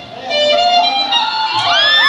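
Dance music: the drumming breaks off, then a reedy wind-instrument melody plays, sliding up into a long held note near the end.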